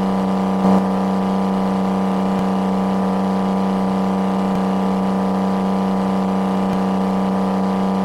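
Small motor running with a steady buzzing hum at one unchanging pitch, swelling briefly just under a second in.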